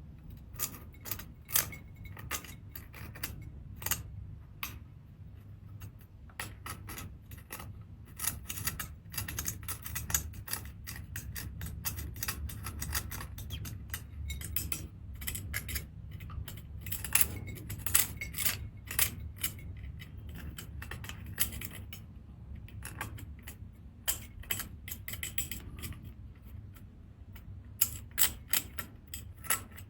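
Seashells clicking and clinking against each other and a hard surface as they are handled during cleaning: many sharp, irregular clicks, thicker in the middle stretch and near the end, over a low steady hum.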